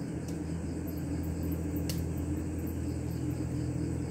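A steady low mechanical hum, with crickets chirping faintly and two brief clicks.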